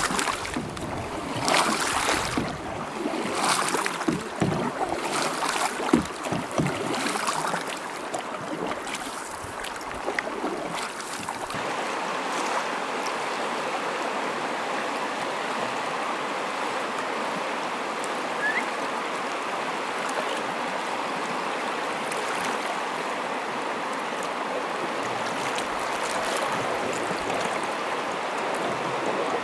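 Irregular splashes and thumps for about the first ten seconds, then the steady rush of river rapids.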